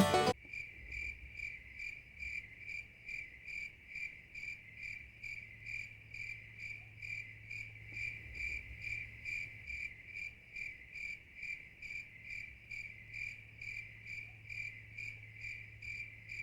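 A cricket chirping steadily, about three short chirps a second, over a faint low hum.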